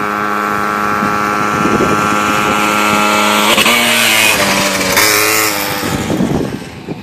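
50cc pocket bike engine running at steady high revs as the bike comes by, its pitch stepping up about three and a half seconds in as the nitrous is hit, then dying away near the end.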